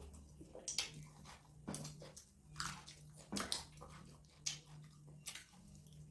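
People chewing and eating mutton curry and rice: faint, irregular mouth smacks and clicks, over a steady low hum.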